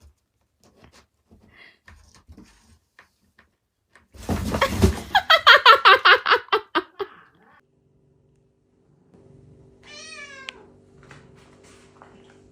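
Cat yowling: one long wavering call, about three seconds, that falls in pitch, starting about four seconds in. A short, fainter meow follows about ten seconds in.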